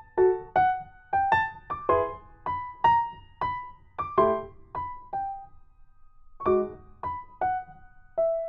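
Background music: a light keyboard tune of single notes that each fade quickly, about two a second, with a short pause about two-thirds of the way through.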